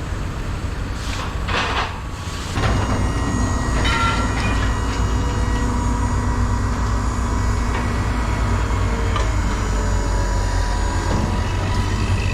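Heavy diesel machinery running steadily close by, getting louder about two and a half seconds in, with a few metallic clanks and knocks.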